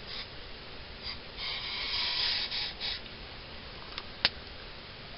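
Hot water poured from a metal pot into a copper mug, splashing for about a second and a half, then one sharp click near the end. A campfire crackles faintly underneath.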